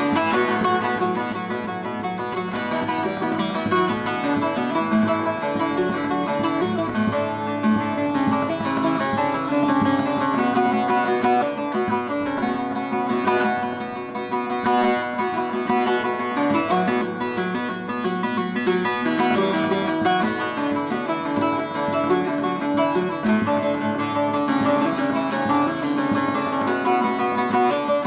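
Solo long-necked bağlama (saz) picked with a plectrum: a steady, busy run of plucked melody notes, the instrumental passage between verses of a Turkish folk song (türkü).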